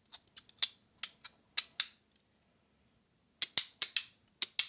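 3D-printed magnetic fidget slider snapping: its plates slide and click into place, giving sharp clicks that often come in quick double clicks, with a pause of over a second in the middle.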